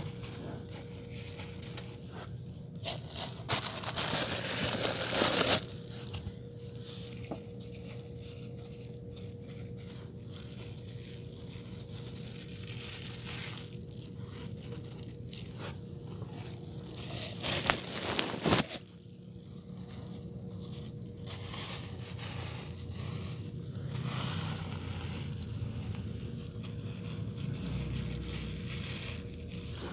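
Hands working on a rodent bait station set-up, making rustling, scraping and crinkling handling noises. The crinkling gets louder twice: for about two seconds around four seconds in, and briefly near eighteen seconds.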